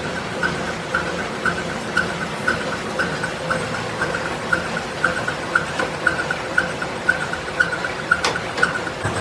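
Lathe running during crankshaft machining: a steady mechanical noise with a short, regular high tick repeating a few times a second.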